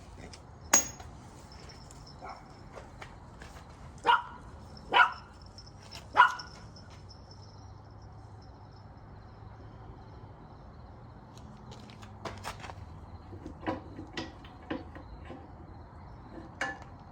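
A dog barks three times, about four, five and six seconds in. A single sharp clank comes just before, and scattered light knocks follow later.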